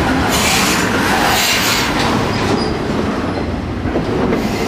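CSX double-stack intermodal freight train's well cars rolling past at speed: a steady, loud noise of steel wheels on rail, with a brighter hiss twice in the first two seconds.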